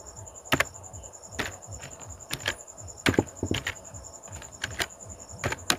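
Computer keyboard keys tapped in an irregular run of sharp clicks as text is typed.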